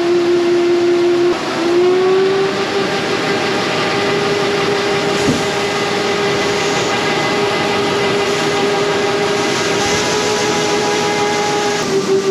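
Tractor with grain cart running at working speed with a steady high whine over the engine. The pitch dips briefly about a second in, then settles a little higher and holds.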